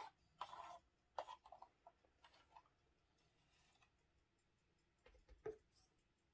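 A few faint taps and scrapes from a wooden stir stick scraping white acrylic paint out of a paint cup in the first three seconds, then a single soft knock about five and a half seconds in.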